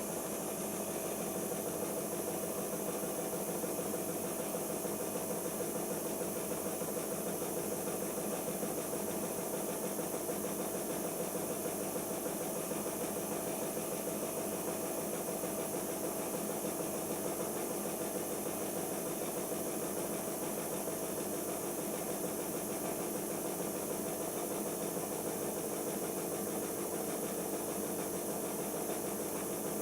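Siemens iQ washing machine running steadily during its pre-wash spin stage: an even mechanical hum with a constant tone and a hiss over it.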